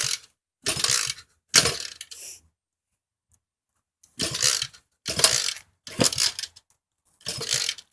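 Motorcycle kick-starter kicked over and over, about seven strokes in two runs with a short pause between, the engine turning over without catching: a flooded engine, as the helper judges it.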